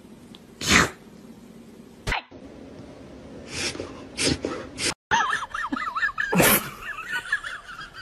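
A kitten sneezing once, sharply, about a second in. After that come a few softer sneeze-like puffs, then a high warbling chirping from about five seconds in, with another sharp burst under it.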